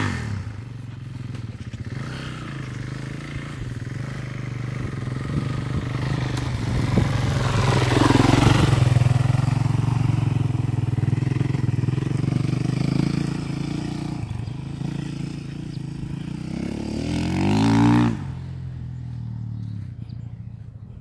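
Dirt bike engine running, growing louder to a peak and then slowly fading as the bike moves off. Near the end it revs up with a rising pitch, then drops away suddenly. A short sharp sound comes right at the start.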